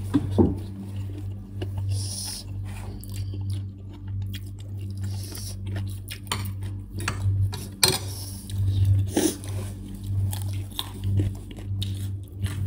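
People chewing mouthfuls of instant noodles, with scattered small clicks of a fork against the bowl, over a steady low hum.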